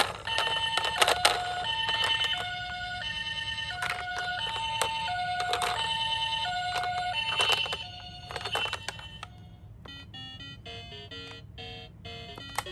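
Several toy ambulances' electronic two-tone sirens sounding at once, each alternating between a higher and a lower note in the Japanese 'pee-poh' pattern, overlapping out of step, with sharp plastic clicks. The sirens stop after about nine seconds, leaving a quieter electronic melody.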